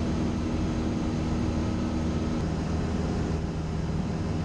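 Single-engine Cessna's piston engine and propeller droning steadily in cruise. A fainter higher hum over it stops about halfway through.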